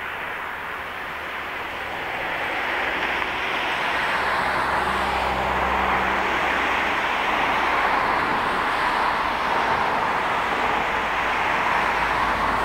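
Narrow-gauge steam locomotive 99 749 working in the distance as it approaches: a steady rushing noise that grows louder over the first few seconds and then holds.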